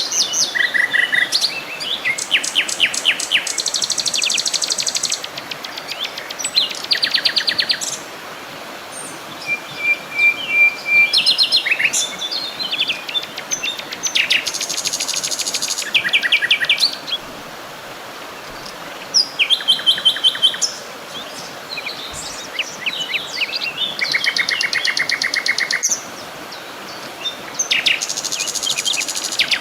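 Songbirds singing: bursts of fast trills and chirps, several different songs overlapping and recurring every few seconds, over a steady soft background hiss.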